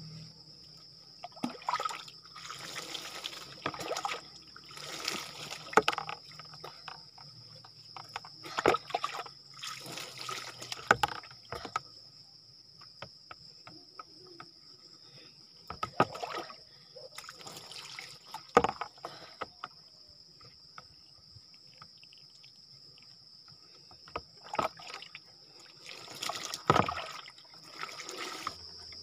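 Water poured from a small bowl over a person's head and body, splashing down in repeated bursts of a second or two with quiet gaps between. A steady high-pitched hum runs underneath.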